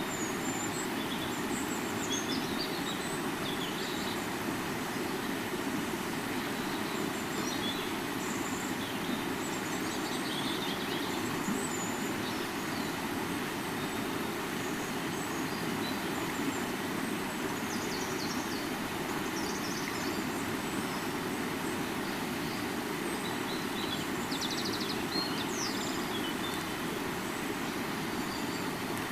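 Steady rushing of a flowing river, with short high chirps scattered through it.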